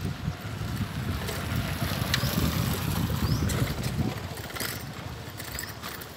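Bicycle riding over a concrete street, with a low rumble of wind and rolling noise on the microphone that eases off after about four seconds. Light rattling clicks run through it, and there are short high chirps about once a second.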